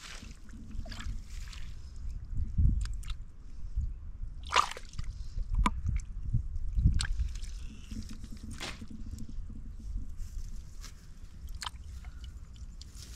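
A hand groping in a muddy, water-filled hole: mud squelching and water sloshing and dripping, in irregular short splashes every second or two.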